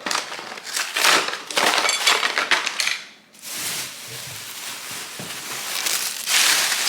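Plastic bag being crinkled and handled, in uneven bursts of rustling that drop away briefly about three seconds in.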